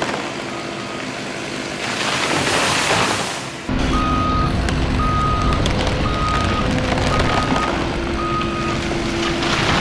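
A heavy machine's backup alarm beeping steadily, about one beep every 0.8 seconds, over its running engine. There is an abrupt jump in engine rumble and loudness a little under four seconds in, after which the beeps are louder.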